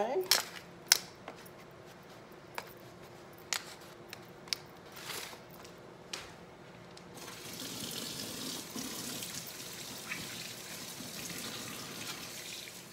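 A few light clicks and knocks of handling at the counter, then a kitchen faucet running into a stainless steel sink from about seven seconds in as hands are rinsed under it.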